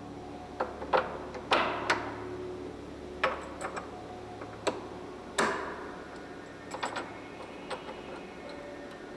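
CNC router tooling being assembled by hand: metal tool parts clicking and clinking together in about a dozen irregular knocks, a few of them ringing briefly.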